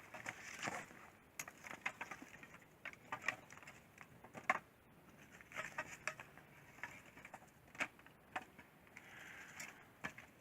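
Small pieces of dry maple and beech firewood being laid onto a stack of logs: irregular light knocks and clatters of wood on wood.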